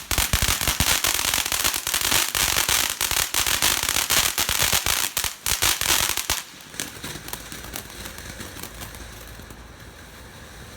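Ground firework crackling with rapid pops over a hiss, then cutting off suddenly about six seconds in, leaving only faint steady noise. The sudden stop is the kind of pause after which some fireworks start again.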